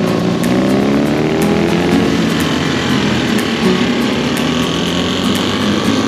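Motorcycle engine running loudly and accelerating, its pitch rising over the first two seconds and then holding steady.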